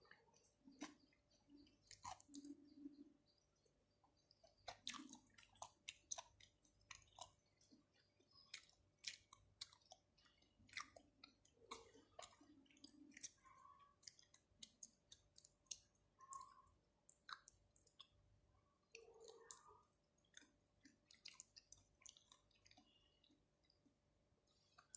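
Close-miked mouth sounds of chewing raw shrimp and octopus: wet, sticky smacks and clicks in an irregular stream, at low level.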